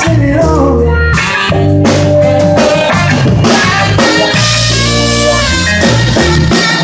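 Band music with guitar over a steady bass line and drum kit, without vocals.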